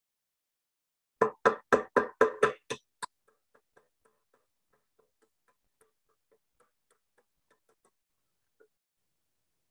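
A claw hammer driving small nails into a wooden board: a quick run of about eight sharp blows a second or so in, then much fainter light taps for several seconds.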